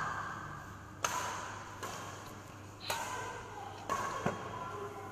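Badminton rackets striking the shuttlecock in a rally: sharp hits about a second apart, each echoing in a large hall.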